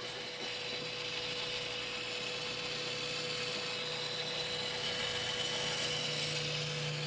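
Faint, steady whirr of the CD motor inside a failed factory Jensen RV dash radio, spinning continuously even though the unit does not respond to power or eject; the owner believes this constantly running motor is what has been draining the RV battery. A low hum under the whirr grows stronger about four seconds in.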